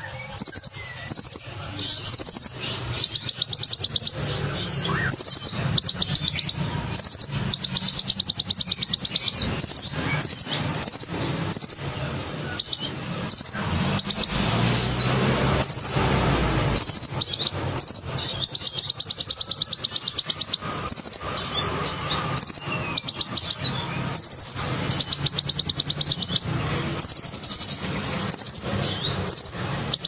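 A caged male kolibri ninja sunbird singing: fast, even high-pitched rolling trills of about a second each, repeated many times, between quick chattering notes. A low rushing noise comes in for a few seconds around the middle.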